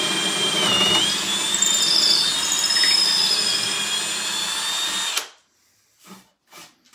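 Cordless drill boring a 19/64-inch hole straight through a wooden drawer front, running steadily with a whine that wavers slightly in pitch, then stopping suddenly about five seconds in. A few faint, quick brushing strokes follow as sawdust is swept off the wood by hand.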